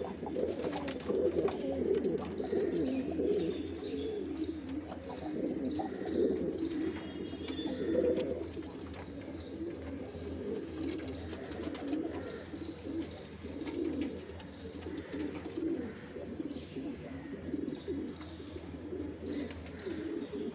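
Several domestic pigeons cooing, their low coos overlapping without a break.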